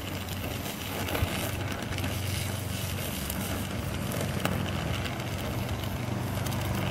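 Brazing torch burning with a steady hiss and a low hum, heating a broken cast-iron exhaust manifold so brazing rod can flow into the crack.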